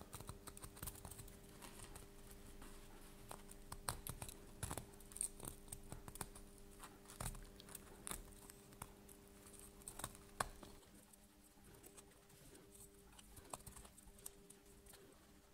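Faint, irregular small clicks and scrapes of a knife blade cutting away the thin plastic strands of a 3D-printed part's sacrificial layer.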